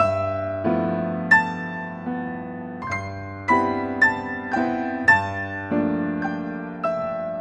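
Solo piano playing slow, gentle chords with a melody on top, each new note or chord struck every half second to a second and left to ring over a held bass note.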